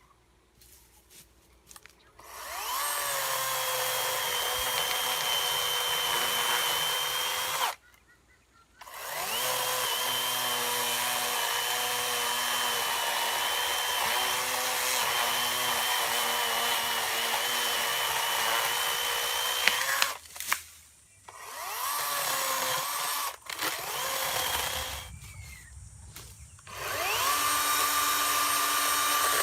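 Greenworks 40-volt battery chainsaw with a 16-inch bar, its electric motor whining as it spins up and cuts cedar. It runs in two long stretches with a short stop between, gives a few brief blips, then starts up again near the end.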